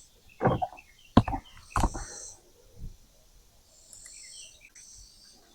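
Three sharp knocks, about half a second to a second apart in the first two seconds, then softer handling clatter. Behind them, short high-pitched insect-like trills repeat.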